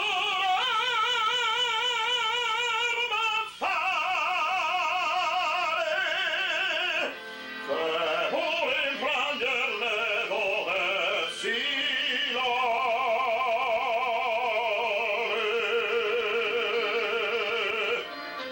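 Tenor singing an opera aria in several long phrases, holding the notes with a wide vibrato; the singing stops near the end.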